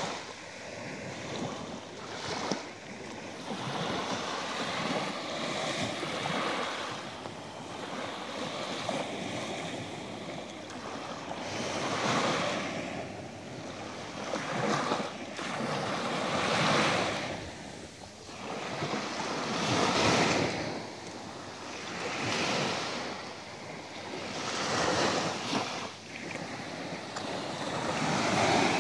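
Small Black Sea waves breaking and washing up a sand beach, the surf swelling and falling away every few seconds.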